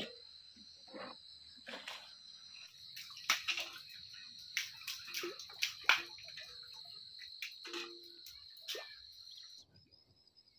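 Insects chirring steadily in a field, with a series of sharp knocks and metallic clanks from a steel bucket and rope being handled at the rim of a stone-lined well to draw water.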